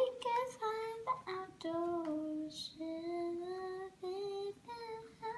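A child singing a simple tune in a string of held notes, stepping up and down in pitch.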